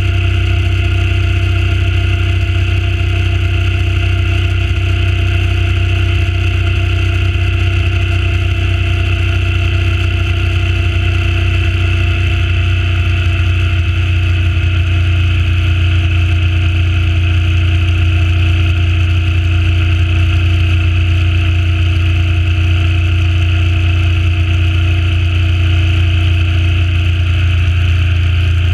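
Suzuki Intruder C800's V-twin engine running at a steady cruise, its pitch holding even throughout; the bike is still being run in.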